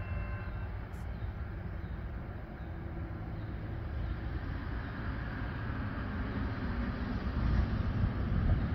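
Approaching CSX freight train: a low rumble of locomotive and wheels that grows steadily louder.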